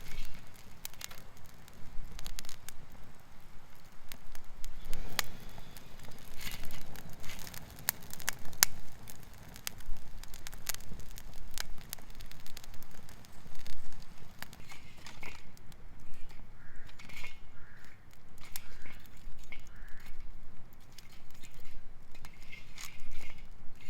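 Wood campfire crackling, with irregular sharp pops and clicks over a low rumble of wind on the microphone.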